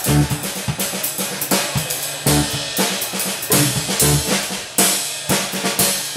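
Live instrumental jazz-funk trio of drum kit, electric bass and electric organ playing, with busy snare, bass-drum and cymbal hits over walking bass notes and held organ chords.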